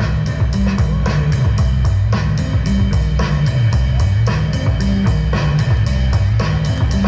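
Loud music with a fast, steady drum beat and heavy bass.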